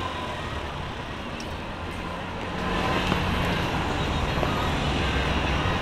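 Busy city street ambience: a low vehicle engine rumble under a general hubbub of passers-by, getting louder about two and a half seconds in.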